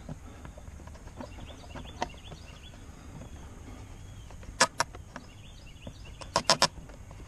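Sharp clicks and knocks of hands working a hose fitting loose on an outboard engine: two knocks about four and a half seconds in, then a quick run of four near the end, over a low steady rumble.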